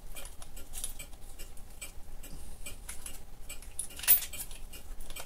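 Small metal clicks and light scraping as a brass wheel blank is handled and screwed onto a metal holder, with one louder clink about four seconds in.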